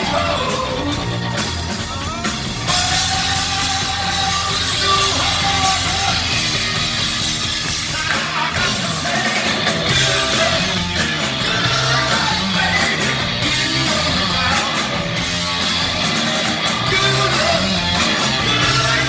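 Live rock band playing: electric guitars and drums under a male lead singer's voice, the band getting louder and fuller about three seconds in.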